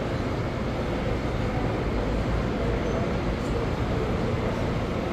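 Busy exhibition-hall ambience: a steady low rumble mixed with the indistinct murmur of many voices.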